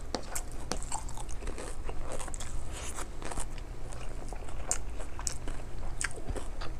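Chewing and mouth sounds of a person eating rice by hand, with soft wet crackles and a few sharp clicks.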